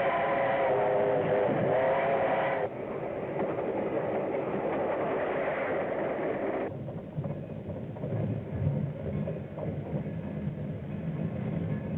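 Steam locomotive whistle blowing one long, steady blast for the first few seconds, then the train running with a noisy rumble and clatter that drops lower and rougher about halfway through.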